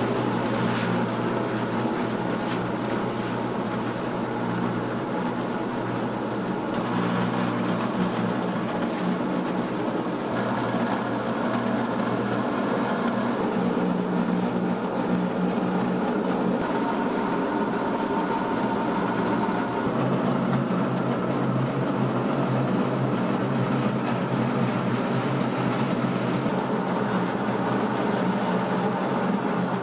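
Steady mechanical hum with a low drone under a noisy background, its character shifting every few seconds.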